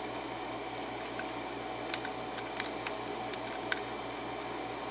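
Faint, irregular metallic ticks and clicks of a lock pick working the pin tumblers of a Schlage KIK 6-pin lock cylinder during single-pin picking, about a dozen small clicks over a steady low hum.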